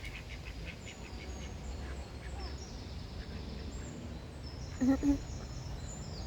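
Ducks quacking on the water: faint calls in the first second, then two loud quacks close together about five seconds in. Faint high chirps come and go above a steady low rumble.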